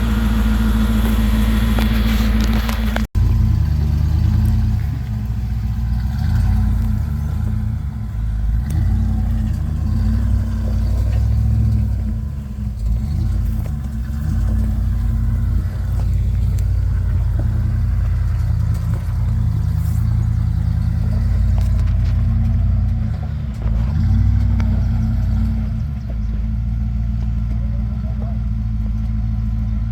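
Off-road truck's engine running at low speed, revving up and easing off as it crawls an obstacle, with a brief drop-out about three seconds in.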